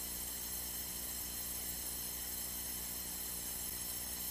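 Steady electrical hum and hiss on a light aircraft's intercom and radio audio line, with no change and no events.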